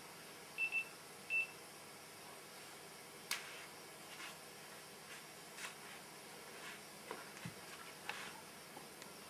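Three short high-pitched electronic beeps, two close together and a third about half a second later, over a steady hiss, followed by faint scattered clicks.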